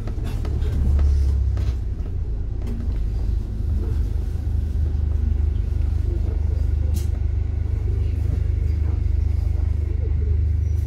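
Bus rumbling, heard from inside the passenger cabin: a steady low engine and road rumble with a few light clicks and rattles, the sharpest about seven seconds in.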